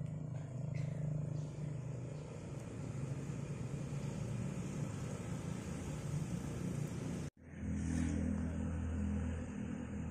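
A steady low engine-like hum, broken off for an instant about seven seconds in and coming back at a lower pitch.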